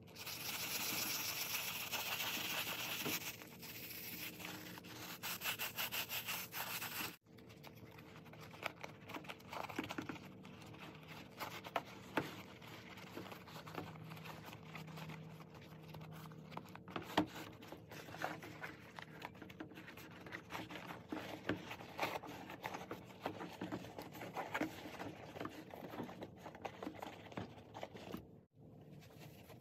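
Rubber suede eraser scrubbed back and forth over a suede handbag, a dry-cleaning step that lifts dirt from the nap. It is loud for about seven seconds, then stops abruptly. Quieter rubbing and handling of the bag follows, with scattered small ticks.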